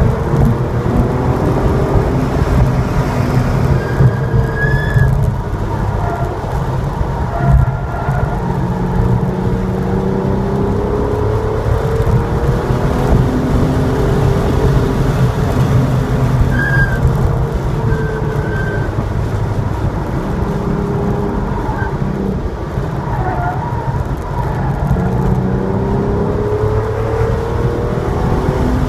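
Porsche 911 Targa's flat-six engine running hard on track at about 4,000 to 5,200 rpm, its pitch rising and falling again and again through gears and corners, over heavy road and wind noise.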